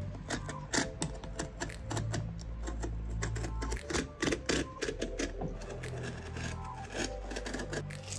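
Utility knife cutting a heat-softened leather sole away from the welt of a Goodyear-welted boot: a rapid, irregular run of short clicks and ticks as the blade works along the seam, over background music.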